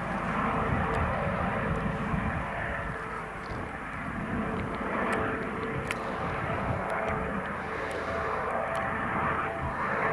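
Eurocopter EC155 twin-turbine helicopter in flight on its landing approach: steady rotor and turbine noise over a low rumble, with a constant whine.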